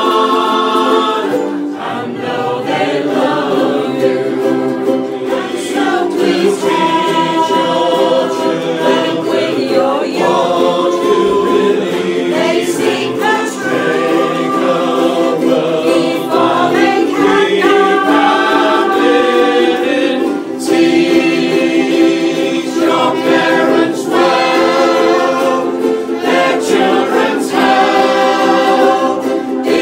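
A group of ukulele players strumming their ukuleles and singing together, men's and women's voices in chorus.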